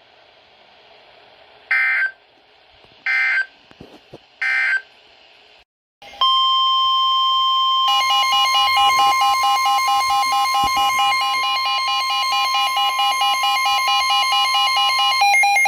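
Emergency Alert System signals on a NOAA Weather Radio broadcast. First come three short bursts of buzzing digital SAME data tones. After a brief silence, a loud steady alert tone of about 1 kHz sounds, and about two seconds later a rapidly pulsing tone pattern joins it. Both cut off just before the next warning announcement.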